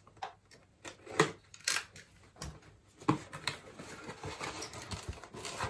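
A cardboard product box being cut open and unpacked: a handful of sharp snips and clicks from a blade working the box, then denser rustling of cardboard and paper packing over the last two seconds or so.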